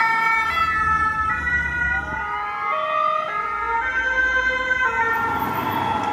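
Several French two-tone emergency-vehicle sirens sounding at once, each stepping back and forth between two notes at different pitches. A siren pitch glides upward about two and a half seconds in, and another swoops down near the end.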